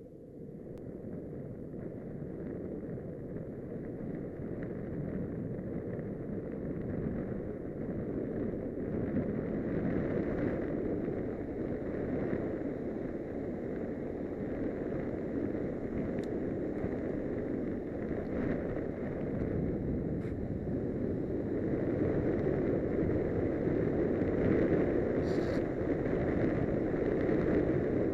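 Longboard wheels rolling on asphalt with wind on the microphone: a steady low rumble that grows gradually louder as the board picks up speed downhill, with a few faint ticks.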